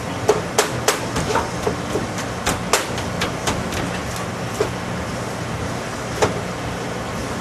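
Sharp knocks on a cutting board as smoked whole-hog meat is pulled apart and chopped by hand: a quick run of about a dozen in the first three and a half seconds, then two more spaced out, over a steady low hum.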